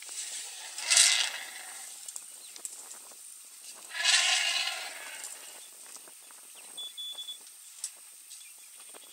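Newborn African elephant calf calling twice: two short high-pitched calls about three seconds apart, the second one longer at just over a second.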